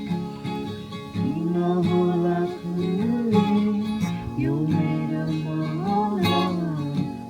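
Acoustic guitar strummed with a voice singing along.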